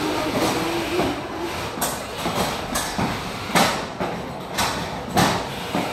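Combat robots slamming into each other in the arena: a run of sharp metallic clanks and impacts, about seven of them at uneven intervals, with a brief electric-motor whine near the start.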